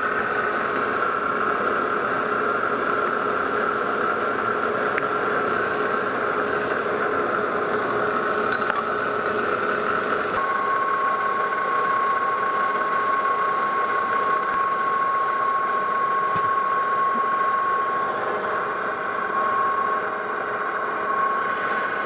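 Metal lathe running steadily with a constant whine from its motor and gearing while turning a plastic disc. About ten seconds in the sound changes abruptly and a thin, high, slowly falling tone joins it.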